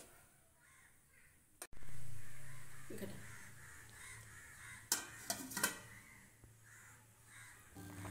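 A steel plate is set on an aluminium cooking pot as a lid, giving a few light metal clinks about five seconds in. Crows caw in the background, over a low hum that comes in suddenly about two seconds in.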